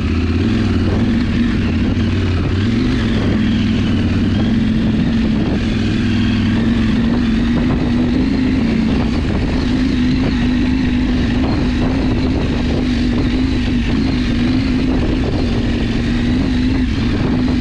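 Motorcycle engine running steadily at low trail speed, one constant note that rises and dips slightly.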